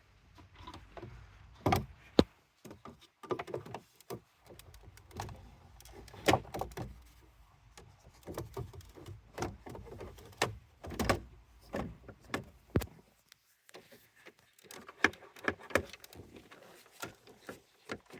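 Irregular clicks, knocks and rattles of plastic interior trim and a head unit being worked by hand into a car's centre console, with a few sharper knocks as parts are pushed into place.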